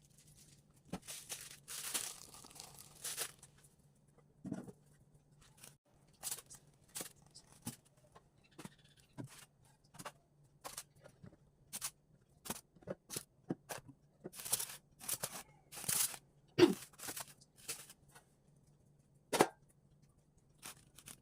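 Food packaging being handled: a run of short rustling, crinkling and tearing noises with scattered taps and clicks, the loudest near the two-thirds mark and again a few seconds later. A faint steady low hum runs underneath.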